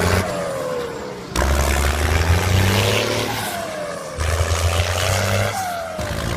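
Vehicle engine sound running in a repeating cycle: a low hum that drops away every few seconds, with a falling whine at each drop.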